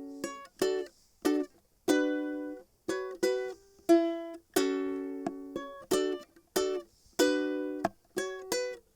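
Enya K5 tenor ukulele playing a rhythm of plucked chord stabs. Each chord rings briefly and is then cut off short by muting the strings, leaving short gaps between them.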